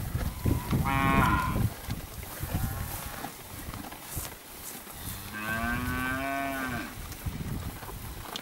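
Newly weaned Angus calves mooing: a short, high call about a second in, then a longer, lower call lasting nearly two seconds about five seconds in. The calls sound over the low rustle and munching of calves eating hay from a trough.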